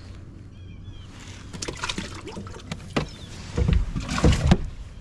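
Knocks, clicks and heavy thumps on a bass boat's deck and hull as the anglers move about and handle the catch. The loudest thumps come in a cluster a little past the middle.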